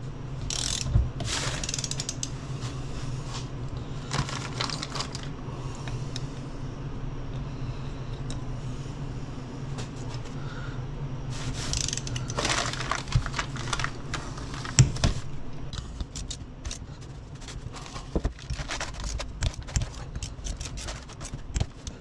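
Ratchet wrench clicking in short runs as cap nuts are run down onto a transfer case, with metal clinks from the nuts and tools. A steady low hum runs underneath.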